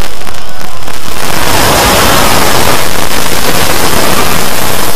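A loud, distorted wall of noise with no clear voice or tune: the soundtracks of many stacked, sped-up copies of a video playing at once, clipped into a steady hiss.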